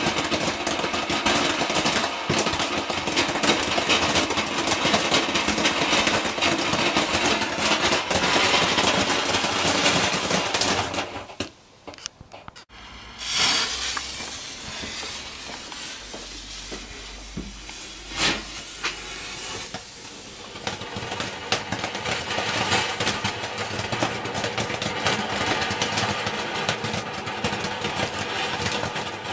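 Garden fountain fireworks from a TNT Merlin selection box spraying sparks with a loud, steady hiss and crackle. About eleven seconds in the hiss dies away, a short loud burst follows, then a quieter sputtering hiss with one sharp crack before another fountain starts and the loud hiss builds again.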